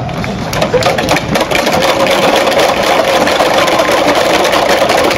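A large crowd in the stands clapping and shouting together, a dense, steady wash of many claps and voices.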